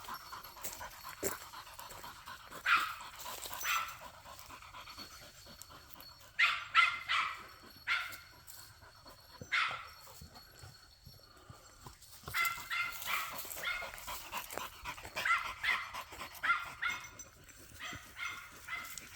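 Hunting dog barking in short, high-pitched yaps, some single and some in quick runs of several, with quiet gaps of a few seconds between.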